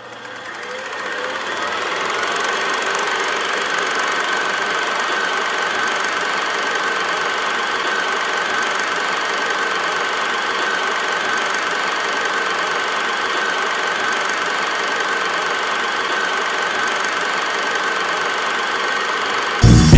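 A steady machine-like whirring noise with a constant high tone and a faint tick every few seconds. It fades in over the first two seconds and cuts off abruptly just before the end.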